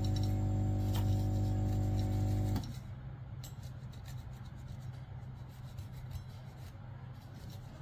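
A steady low electrical hum cuts off suddenly about two and a half seconds in. After it, a cloth rubs and wipes over a small circuit board, with light scratching.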